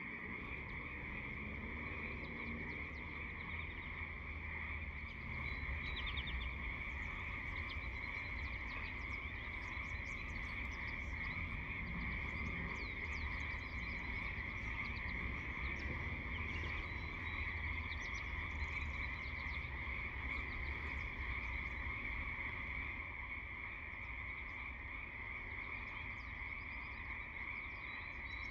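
A large chorus of frogs calling together, a dense and unbroken mass of overlapping calls.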